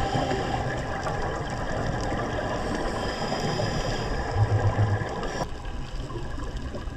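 Muffled underwater noise picked up by a diving camera, with a short pulsing low rumble of scuba exhaust bubbles about four and a half seconds in. The sound turns quieter and duller about five and a half seconds in.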